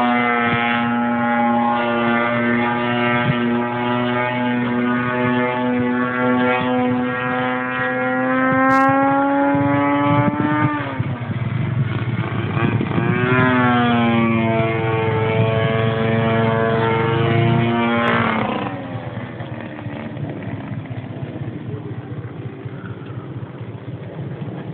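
DLA 64cc twin-cylinder boxer gasoline engine of a giant-scale RC Yak-54 in flight, running at a steady high-power drone with a slight rise in pitch. About 11 seconds in the throttle is pulled back, then opened up again with a rising pitch. It is throttled back near 18 seconds and runs quieter for the rest.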